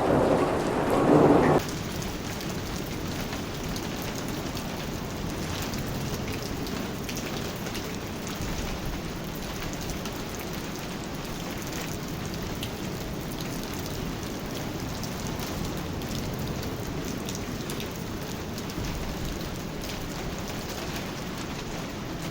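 Steady heavy rainfall with fine patter of drops. For the first second and a half a louder rumble of thunder sounds over it and cuts off abruptly.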